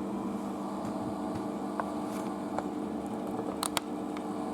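Asko washing machine running in its rinse and spin stage: a steady mechanical hum with a few light clicks, the loudest about three and a half seconds in.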